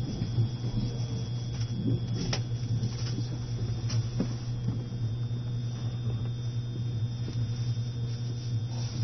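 Inside an E653 series electric train running at low speed: a steady low hum over a noisy rumble, with a few sharp clicks.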